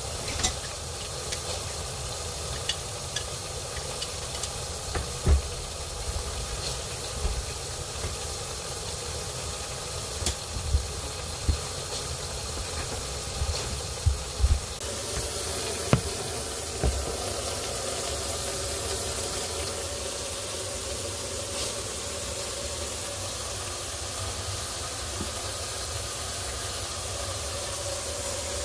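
Steady hiss of water running through the sink and drain while the new connections are checked for leaks, with scattered knocks and bumps from hands and pipes.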